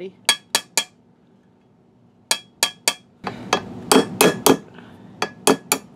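Hammer lightly tapping a pin punch to drive out the rear trigger pin of a Remington 700 rifle, each tap ringing briefly. The taps come in two groups of three with short pauses, then a quicker run of about seven as the pin starts to move.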